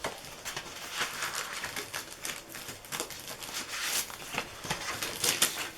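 Sheets of card and patterned paper being handled and shuffled: rustling with many small taps and clicks.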